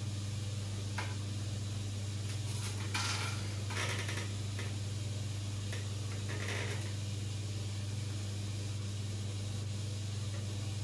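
Steady low hum of aquarium equipment such as a pump or filter, with a few short scratchy noises between about one and seven seconds in.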